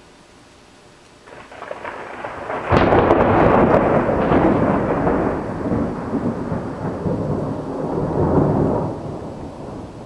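A peal of thunder: a rumble builds about a second in, turns into a sudden loud clap near three seconds, and rolls on for several seconds before fading near the end.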